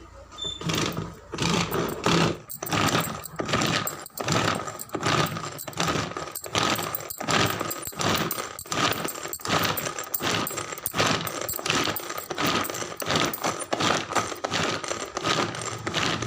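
Pull-cord vegetable chopper being pulled over and over, about two pulls a second, each pull a short rasping whir as the spinning blades chop onion pieces in the plastic bowl.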